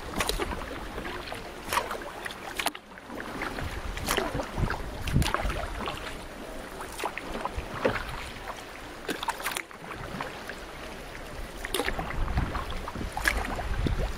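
Paddle strokes splashing in the sea beside a racing canoe, a splash about every second or so, with wind rumbling on the microphone.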